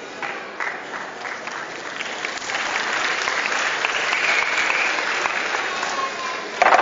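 Audience applauding, starting as scattered claps and building to steady, fuller applause; a loud crash near the end.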